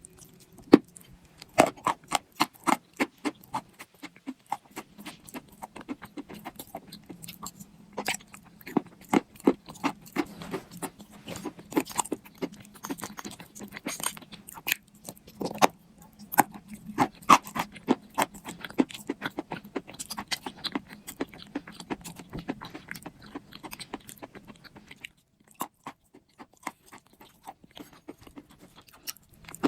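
Pieces of dried soft clay being crushed and crumbled, giving dense, irregular crunching and crackling made of many sharp cracks. A faint low hum sits underneath and stops about 25 seconds in, just before a short pause in the crunching.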